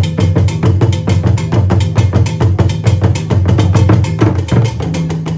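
Music with heavy bass and a quick, steady percussion beat of sharp clicking strokes.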